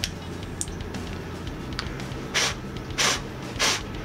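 Electronic arc lighter (the 'laser beam lighter') firing its arc in three short hissing, crackling bursts about two-thirds of a second apart, starting a little past halfway, after a few faint clicks. A low steady hum sits underneath.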